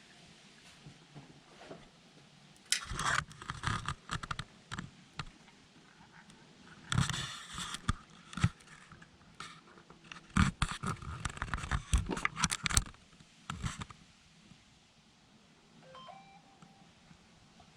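Clatter and scraping from handling an oil jug while fresh motor oil is poured into the engine, coming in three spells of sharp knocks and rustling with quiet between them.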